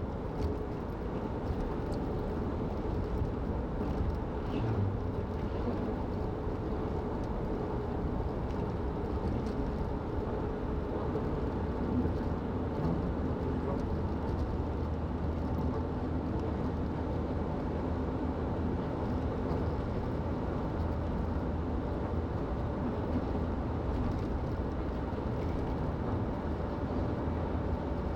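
Car cruising at a steady highway speed: steady road and engine noise heard from inside the cabin, with a low rumble and a faint engine hum.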